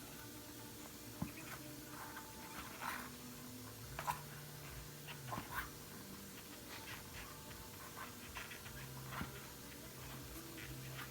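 Faint handling noises: light clicks, rubbing and crinkly scrapes as a rubber inner tube is stuffed into a bicycle tire, over a faint low hum that comes and goes.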